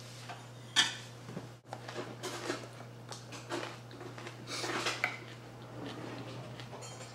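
Hands handling small tools and parts at a table: scattered light clicks and taps with short rustles of a paper towel, the sharpest click about a second in and a busier spell of handling near five seconds, over a steady low hum.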